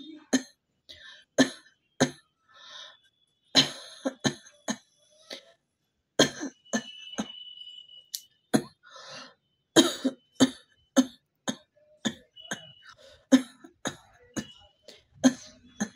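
A person coughing over and over in short, sharp coughs, coming in fits with brief pauses between them.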